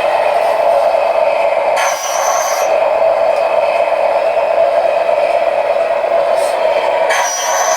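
Radio-controlled model truck running: a steady drone, broken by two short hissing bursts, one about two seconds in and one near the end.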